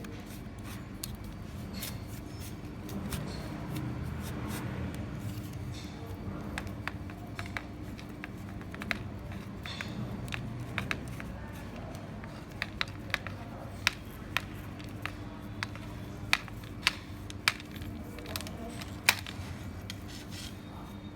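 Hand work on a cracked plastic landing-net handle: a run of short, sharp clicks and snips, louder and more frequent in the second half, over a steady low hum.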